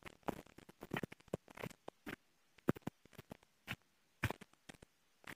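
Footsteps scuffing and tapping on a narrow concrete path, an uneven step sound every half second or so.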